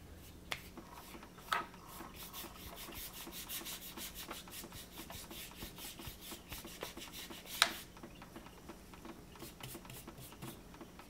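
Paintbrush scrubbing acrylic paint onto paper in quick side-to-side strokes: a fast run of rasping rubs lasting several seconds, with a few sharp taps, the loudest about two-thirds of the way through.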